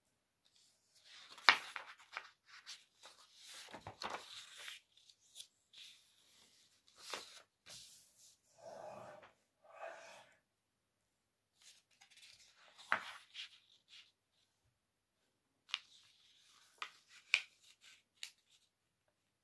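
A sheet of paper handled and folded on a wooden table: intermittent rustling and sliding as it is smoothed and creased, with a few sharp clicks.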